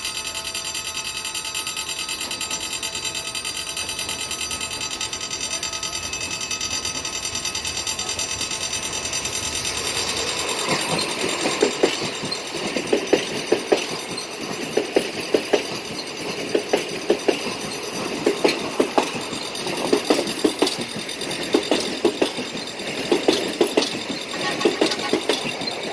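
A train passing. For about the first ten seconds there is a steady hum made of many high, even tones. Then the wheels start clacking over rail joints in quick groups of knocks that repeat to the end.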